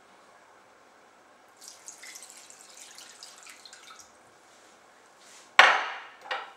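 Liquid poured from a small glass over a raw whole chicken, splashing and dripping onto the skin and rack for about two seconds. Near the end comes a sudden loud knock, then a second smaller one.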